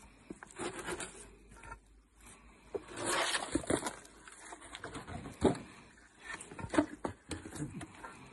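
Painted wooden beehive boxes being handled: a scrape about three seconds in, then several sharp wooden knocks, the loudest two about a second apart, as boxes are lifted off the hive stacks and set down.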